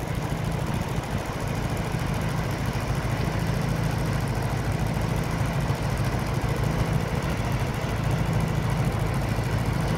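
Farm machinery engine running steadily at working speed, a constant low drone with no change.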